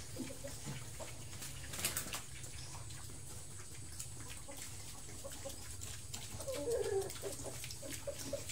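Piglets feeding at a concrete trough: a stream of short wet chewing and smacking clicks, with a brief call about seven seconds in.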